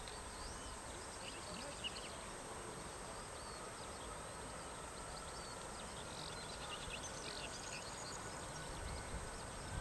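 Faint, distant whine of a Boeing 747-400 freighter's jet engines, slowly rising in pitch as they spool up for takeoff, over a steady open-air background noise with scattered high chirps.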